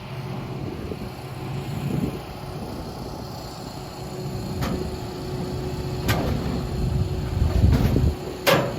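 An engine running steadily at idle, with four sharp knocks over the last half.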